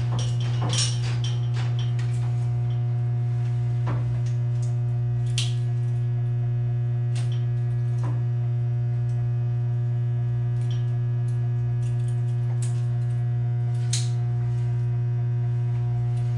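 Two large power transformers, about 150 kVA each, humming loudly and steadily: a low electrical buzz with overtones above it. A few light clicks and taps sound over it now and then.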